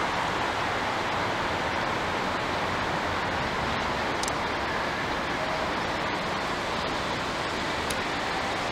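Steady, even rush of distant city traffic.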